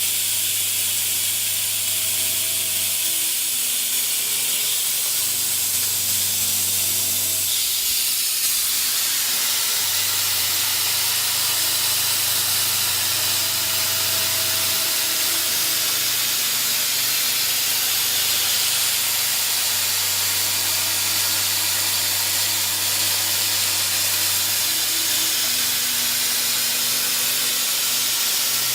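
A steady, loud hiss of machinery over a low hum that drops out and returns every few seconds; the hiss grows brighter about eight seconds in.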